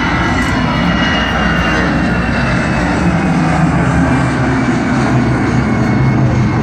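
A loud, steady aircraft-like engine drone, its higher tones slowly falling in pitch.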